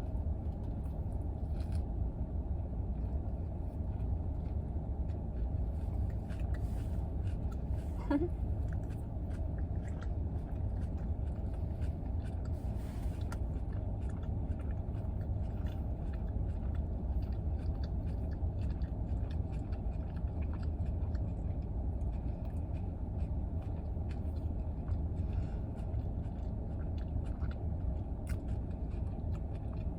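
Steady low hum inside a parked car's cabin, from the idling engine and heater fan, with faint chewing and small clicks and rustles of eating a sub sandwich.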